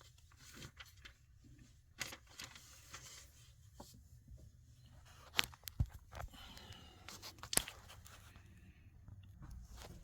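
Hands and tools working on a car door's trim and parts: scattered rustling and scraping, with several sharp clicks, the loudest just past the middle.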